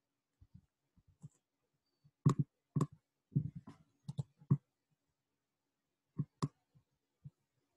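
Computer keyboard keys and mouse clicking in short, irregular taps, bunched about two to four and a half seconds in, with two more a little after six seconds.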